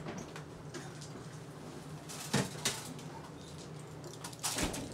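A few light knocks and clatters of kitchen things being handled, over a low steady hum. The clearest knocks come about two and a half seconds in and again near the end.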